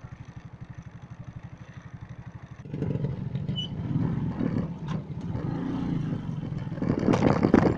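Motorcycle engine running with an even, quiet putter. About two and a half seconds in it turns much louder and rougher, with knocks and rattles from the rough off-road track, loudest near the end.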